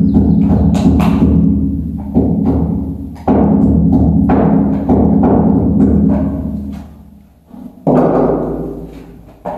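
Four loud booming thuds, each followed by a low ringing hum that fades over a second or more.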